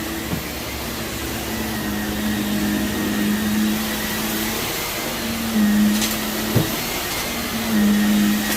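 Bagless vacuum cleaner running over heavily soiled carpet, its motor hum swelling now and then. A couple of short clicks about six seconds in.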